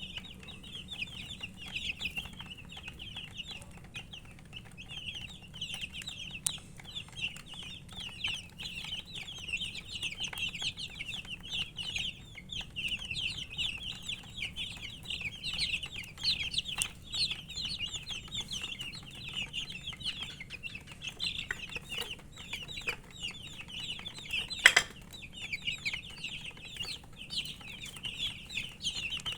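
A flock of baby chicks peeping constantly, many high chirps overlapping; the uploader puts the chirping down to thirst for drinking water. A single sharp knock sounds near the end.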